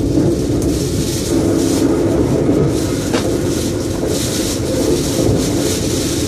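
Cabin noise inside a CRH1 electric multiple unit running along the line: a steady rumble of wheels on rails.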